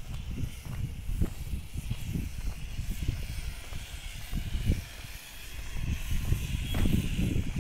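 Wind buffeting the microphone in uneven gusts, over a steady faint hiss.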